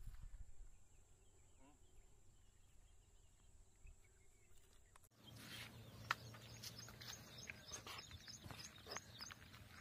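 Faint outdoor ambience, near silent at first. About five seconds in, the background abruptly becomes busier, with scattered clicks and a quick series of faint, high bird chirps.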